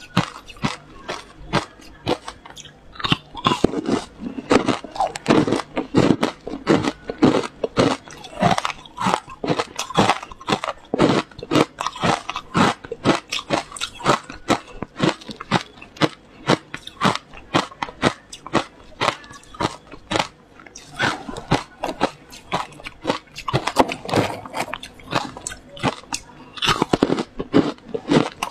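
Hard frozen ice cubes being bitten and chewed close to a clip-on microphone: rapid, sharp crunching and cracking, several crunches a second with no break.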